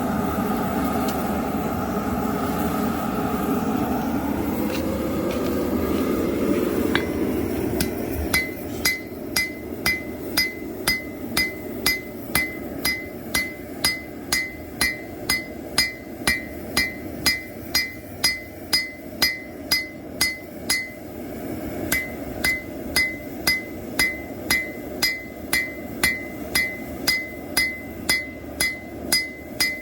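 Hand hammer striking hot knife steel on an anvil at a steady pace, a little under two blows a second, each blow with a bright ringing ping, while the blade is thinned out; the blows stop briefly about two-thirds of the way through, then resume. Before the hammering starts, about eight seconds in, there is a steady rushing noise.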